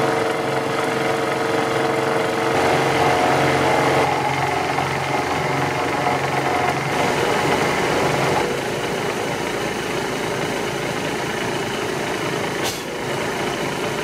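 Vertical milling machine running, its end mill cutting a slot into aluminium square hollow section: a steady motor and spindle hum with cutting noise, its tone shifting a few times as the cut goes on.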